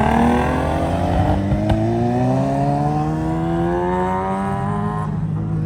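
A car engine accelerating hard, its pitch climbing steadily for about five seconds before it drops off abruptly.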